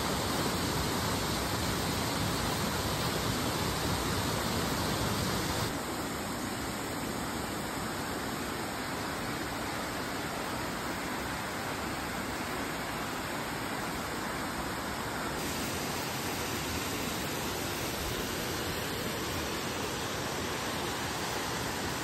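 Water of the Bambarakiri Ella cascade rushing over rock slabs, a steady rush that drops slightly in level about six seconds in.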